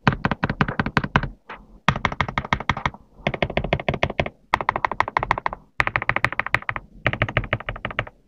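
Typing on a GMK67 mechanical keyboard with cream yellow linear switches: fast runs of keystroke clacks, about ten a second, in several short bursts with brief pauses between.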